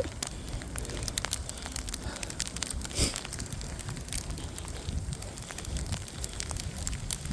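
Irregular crackling ticks over a low, steady rumble of wind on the microphone, outdoors in a snowstorm.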